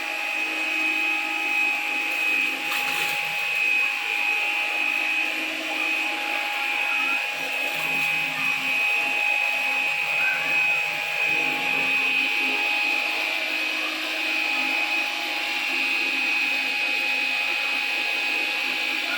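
Dreo cordless stick vacuum running steadily with a high motor whine while it vacuums a surface.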